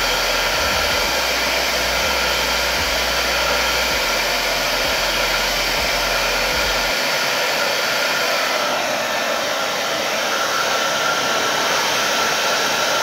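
Handheld electric hair dryer running steadily as it blow-dries hair, an even rushing of air. A low rumble under it drops away about halfway through.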